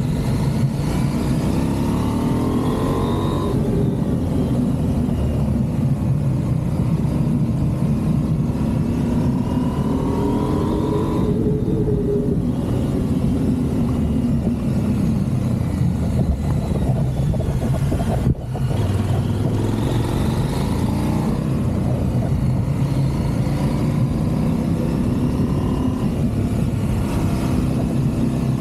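Motorcycle engine running while riding, its pitch rising and falling several times as it accelerates and eases off. There is a brief drop in the sound about eighteen seconds in.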